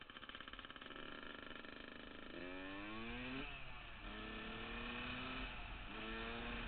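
2000 Yamaha YZ125's 125cc two-stroke single accelerating. Its pitch climbs, drops sharply about halfway through and again near the end, then climbs again each time, as the bike shifts up through the gears.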